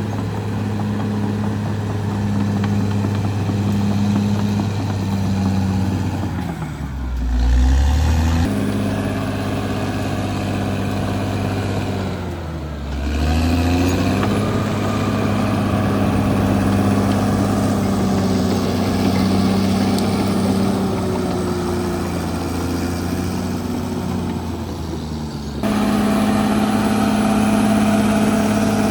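Caterpillar D6R XL bulldozer's diesel engine running steadily under work; twice its pitch drops briefly and climbs back, as the engine slows under load and recovers.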